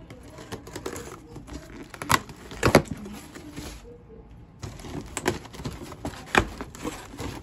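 A package being opened by hand: packaging rustling and crinkling, with many small clicks and several sharp knocks, the loudest about two and three seconds in.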